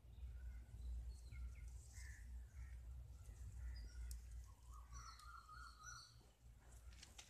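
Faint outdoor ambience: a steady low rumble with scattered short bird chirps, and a longer wavering bird call about five seconds in.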